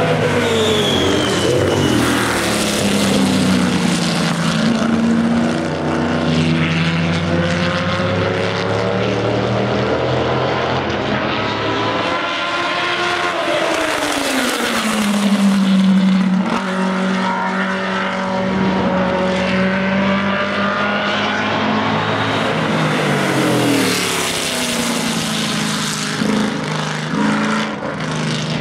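Historic sports racing cars' engines at speed, several cars heard at once as they pass one after another, each engine's pitch dropping as it goes by.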